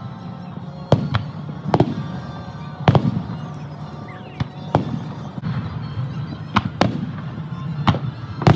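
Aerial fireworks shells bursting overhead in a string of sharp bangs, about one a second and irregularly spaced, over music.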